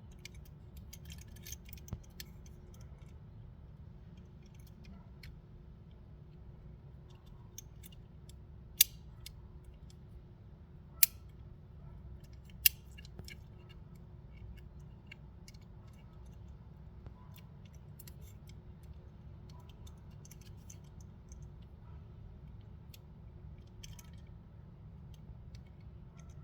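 Small clicks and rustles of a die-cast toy car's packaging being handled and cut open, with three loud, sharp snaps about two seconds apart midway through. A steady low hum runs underneath.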